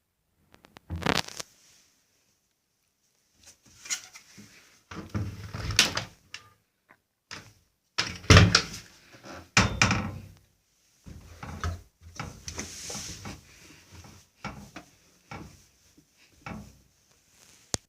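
Irregular knocks, thuds and rattles from an AEG washing machine being handled, its door and detergent drawer being opened and shut.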